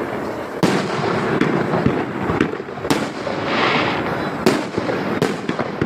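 Fireworks display going off: sharp bangs of shells bursting, four of them standing out, over a continuous rumble of further bursts. A hissing crackle rises about three and a half seconds in.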